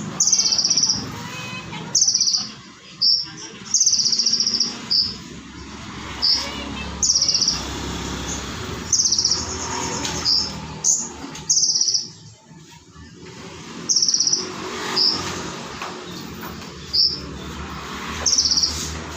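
Olive-backed sunbird (kolibri ninja) singing: short, high, sharp trilled bursts repeated roughly once a second, with brief pauses between them.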